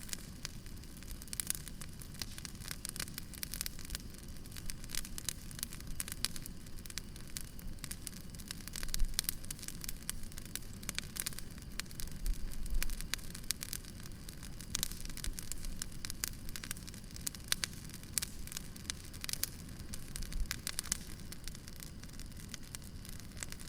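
Firewood burning: steady crackling, with many small, irregular sharp pops over a low, even hiss.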